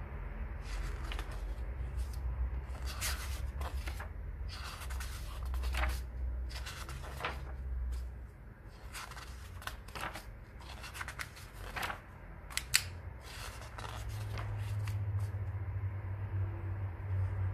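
Pages of a graphic novel being turned by hand: short paper swishes and ticks at irregular intervals, with one sharp paper snap about thirteen seconds in, over a low rumble.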